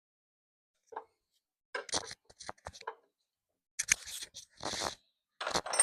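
Irregular metallic clicks and rattles of hand tools working on engine parts, in several short clusters.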